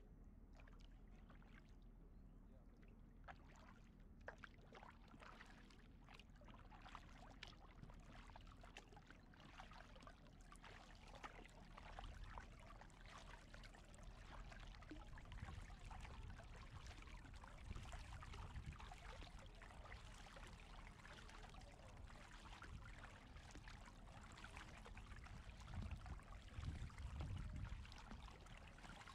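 Faint kayak paddling: the blades of a double-bladed paddle dipping and pulling through calm water, with drips and trickles running off them between strokes. A low rumble joins from about twelve seconds in and is strongest near the end.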